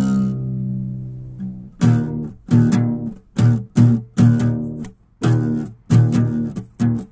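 Background music on acoustic guitar: a held chord rings and fades, then a run of short plucked or strummed chords about twice a second.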